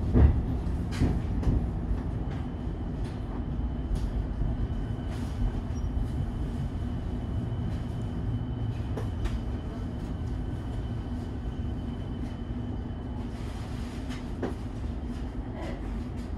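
Inside a Siemens Nexas suburban electric train rolling slowly along a platform: a steady low rumble with scattered clicks, and a faint steady high whine through most of it. A couple of knocks come right at the start.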